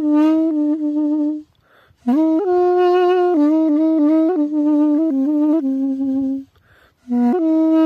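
A duduk (balaban), the wooden double-reed pipe, playing a slow melody in long held notes with small slides and grace notes between them. The playing breaks off for two short breaths, about a second and a half in and again about six and a half seconds in.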